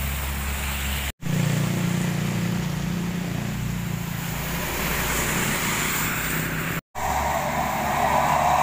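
Passing traffic on a wet road: a heavy truck's diesel engine runs with a steady low hum as it goes by, with tyres hissing on the wet tarmac. The sound cuts out sharply twice for a moment.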